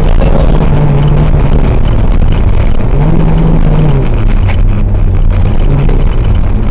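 Rally car engine running under load, its pitch rising and then dropping twice as it revs and changes gear, over loud road noise.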